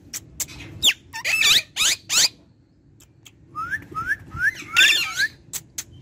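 Rose-ringed (Indian ringneck) parakeet chirping and whistling: a few quick gliding whistled notes in the first two seconds, then a run of about five short rising chirps near the middle, amid scattered sharp clicks.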